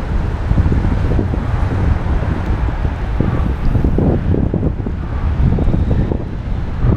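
Wind buffeting the microphone of a camera on a moving bicycle, a loud, gusty low rumble, with road and traffic noise underneath.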